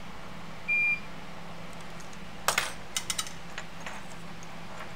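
Microsoldering bench: a short, high electronic beep from the bench equipment near the start, then a quick cluster of sharp clicks and taps from the tools about halfway through, over a steady low hum of the bench equipment.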